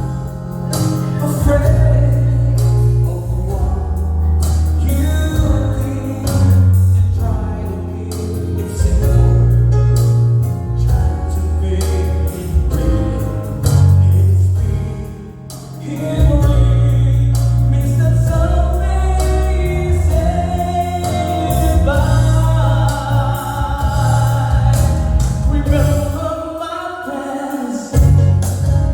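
A song with singing over a heavy, pulsing bass line; the bass drops out briefly near the end.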